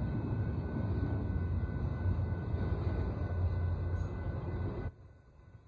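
Union Pacific intermodal train's stack cars rolling past over the crossing, a loud steady rumble of wheels on rail that drops away suddenly about five seconds in.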